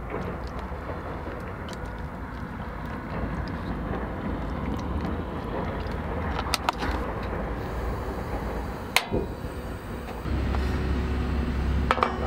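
Sukiyaki sauce sizzling as it hits the hot griddle plate under the vegetables, a steady hiss with small crackles. There is a sharp knock at about nine seconds and another near the end as the lid goes on, and a low steady hum with tones comes in shortly before the end.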